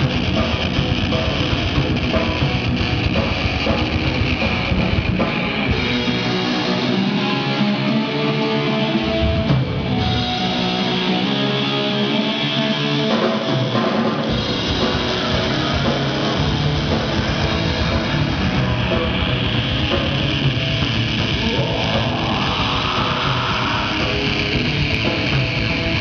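Rock band playing loud through amplifiers: electric guitar over a drum kit. The low drums and bass drop out twice for a few seconds about a third of the way in, leaving the guitar, and a rising glide sounds near the end.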